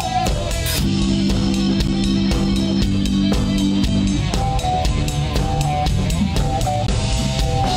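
Live band playing blues-rock: electric guitar over a drum kit. Sustained low notes hold through the first half, then a run of short, higher single notes follows.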